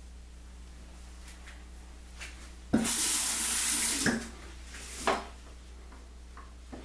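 Sink tap turned on, water running into the basin for about a second and a half, then shut off; a shorter splash comes about a second later.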